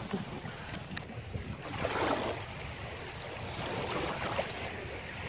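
Water washing in slow swells about every two seconds, over steady wind noise on the microphone.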